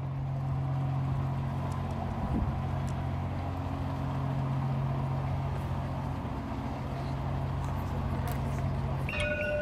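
Steady low engine hum from a moored ship, a diesel or generator running at idle with an even drone. About nine seconds in it cuts off abruptly and high electronic beeping tones begin.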